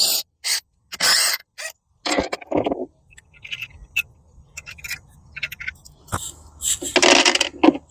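Hand tools working the 5/8 bolts that hold a boat's sterndrive on: a quick series of short clicks and scrapes in the first couple of seconds, then scattered clicks, a single knock about six seconds in and a longer scrape near the end.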